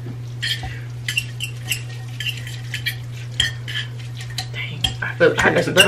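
Metal forks scraping and clinking against ceramic bowls as spicy instant noodles are stirred through their sauce, in short, scattered clicks. A steady low hum runs underneath.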